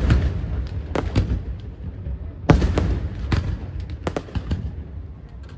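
Daytime aerial firework shells bursting in quick, irregular succession: about a dozen sharp bangs, the loudest about two and a half seconds in, over a low rumble that carries between them.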